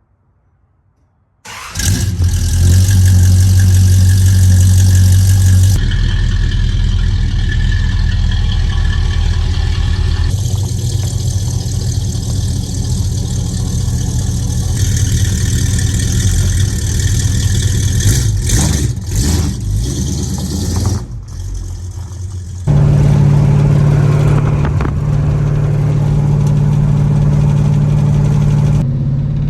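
1968 Dodge Super Bee's big-block V8 through a 3-inch exhaust, starting about a second and a half in and then running loud and revving. The sound changes abruptly several times.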